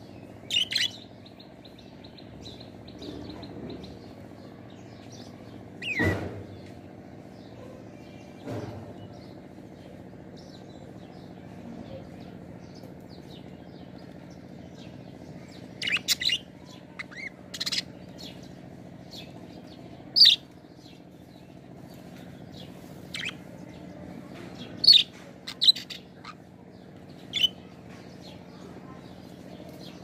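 Budgerigars chirping: scattered short, sharp chirps, only a few at first and then a busier run in the second half, over a faint steady background hum.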